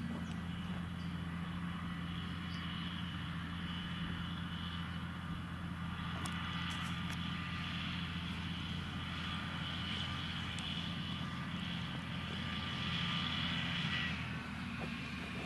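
Fendt 936 Vario tractor's six-cylinder diesel engine running steadily under load while towing a loaded slurry tanker. A steady high whine sits over the engine drone and stops near the end.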